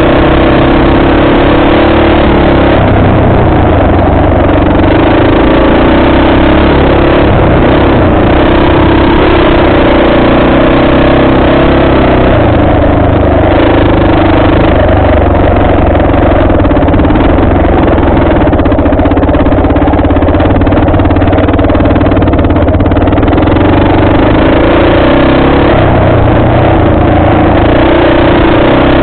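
Off-road vehicle engine running loud and steady while being ridden along a trail, its pitch wavering up and down a little with the throttle.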